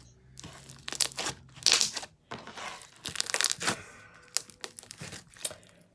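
Slime being squeezed and worked by hand, giving a string of irregular crackling, crinkling bursts, loudest near the start and again around the middle.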